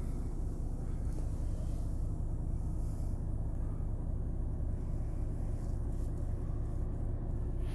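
Renault T480 truck's 13-litre six-cylinder diesel idling: a steady, even low rumble heard from inside the cab.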